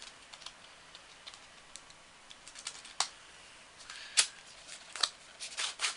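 Light clicks and ticks of a makeup palette and its cardboard box being opened by hand, with a few sharper snaps about three, four and five seconds in and a quick run of clicks near the end.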